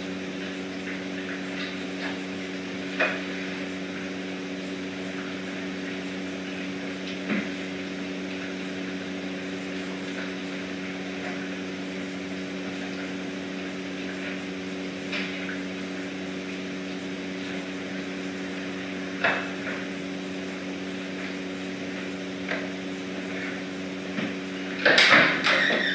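Steady low machine hum, like a fan or air-handling unit, with a few short sharp clicks and knocks and a louder burst of clatter near the end.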